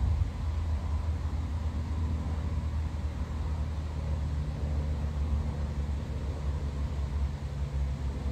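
Low, steady rumbling noise with a faint hiss.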